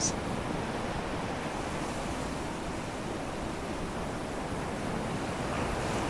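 Ocean surf washing onto a beach: a steady rushing wash of waves that swells slightly near the end.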